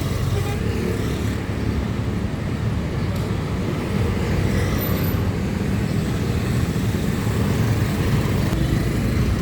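Steady low rumble of road traffic and running vehicle engines around a motorcycle.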